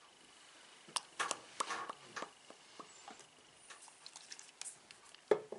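Faint scattered clicks, taps and soft rustles, with a cluster about a second in and a sharper knock near the end.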